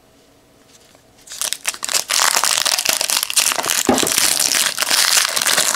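A 2014-15 Donruss trading-card pack wrapper being torn open and crinkled. It starts about a second in and goes on as a dense, loud crackle.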